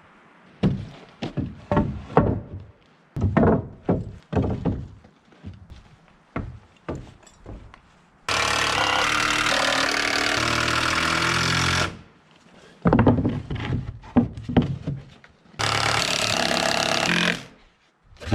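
A series of hammer blows on wood with a short ringing after each, broken twice by a power tool running in steady bursts of about three and a half seconds and about two seconds.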